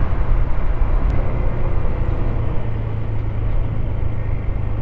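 Honda ADV160 scooter being ridden, its single-cylinder engine running steadily under a dense, even low rumble of wind and road noise on the microphone.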